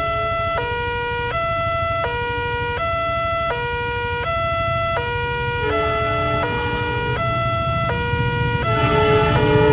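Railway level-crossing alarm from a TOA horn loudspeaker, an electronic warning of two tones taking turns about every three-quarters of a second. From about six seconds in, further tones overlap it. Near the end a low rumble grows louder as the freight train approaches.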